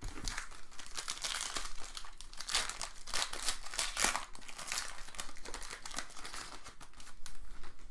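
Trading-card pack wrapper crinkling as it is handled and torn open: a dense, irregular, mostly high-pitched crackle.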